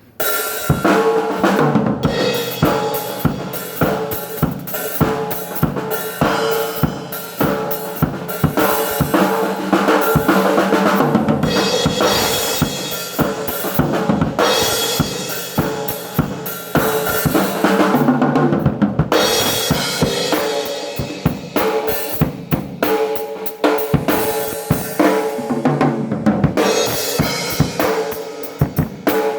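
Drum kit played at a sound check: fast, busy strokes on snare, bass drum and cymbals, with no break.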